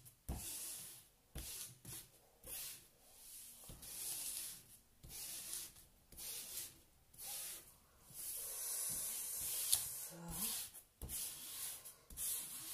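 Hands rubbing and sweeping over the paper cover sheet of a diamond painting canvas, a series of hissing strokes about one a second, pressing out the air trapped under the sheet over the adhesive. There is a single sharp tick near the end.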